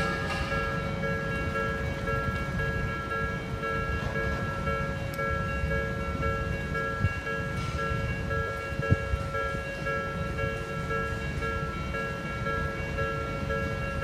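Japanese railroad crossing warning bell ringing its steady, evenly repeating electronic "kan-kan" tone, over a continuous low rumble with a couple of sharp knocks about seven and nine seconds in.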